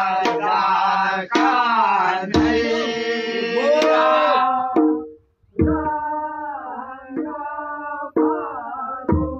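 A group of men singing a Kumaoni Holi song in chorus, with a few heavy beats of a dhol drum. The singing breaks off for about half a second near the middle, then carries on.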